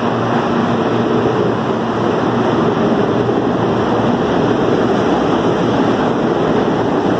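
CPTM electric commuter train moving along the station platform: a steady, loud rumble of wheels on rail and running gear.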